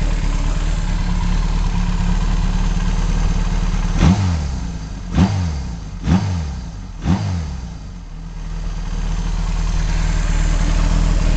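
Kawasaki Z1 air-cooled inline-four, bored to 1197 cc, idling through an NGC straight-type exhaust with the silencer baffle stripped of its steel wool and glass wool. About four seconds in it is blipped four times, roughly a second apart, each rev dropping quickly back, then it sags low and returns to a steady idle.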